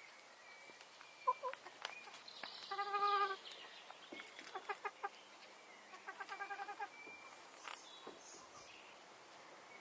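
Domestic hens calling and clucking: a drawn-out call about three seconds in, then runs of quick clucks around five and six to seven seconds in, with a few sharp clicks between.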